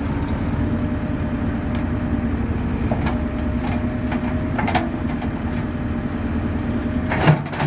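JCB excavator's diesel engine running steadily at a constant pitch, with a few short knocks from the working machine, the loudest near the end.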